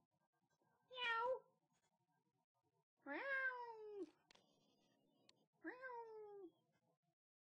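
Domestic cat meowing three times: a short call about a second in, a longer meow that rises and then falls in pitch about three seconds in, and a third falling meow near six seconds.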